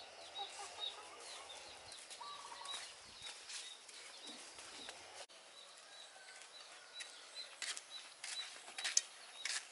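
Rural garden ambience: a short high chirp repeating about twice a second, with footsteps and rustling through the undergrowth and a brief chicken call about two seconds in.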